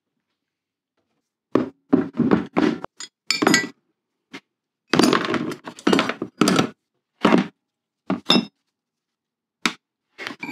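Metal parts of an old Record woodworking vise (screw, bars, jaws, small fittings) being set into a plastic tub of degreaser, clinking and clunking against each other and the tub in a string of short knocks. The knocks come in two busy clusters, then a couple of single knocks near the end.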